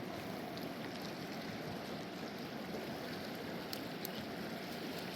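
A fast mountain river rushing steadily, an even roar of water, with a few faint clicks over it.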